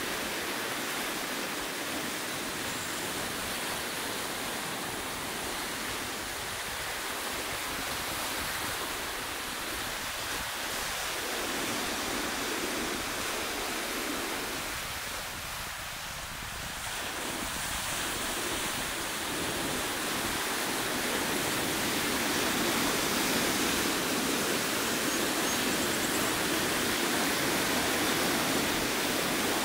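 Ocean surf breaking and washing over rocky ledges: a steady rush of water that dips briefly about halfway through and grows louder in the last third as bigger waves break.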